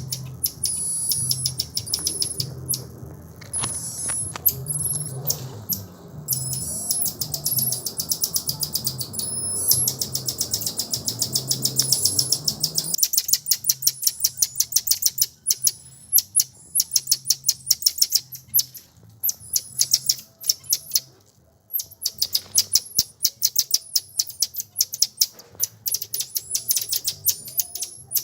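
Birds chirping in rapid trains of short high-pitched notes, several a second, over a low steady hum that stops about halfway through.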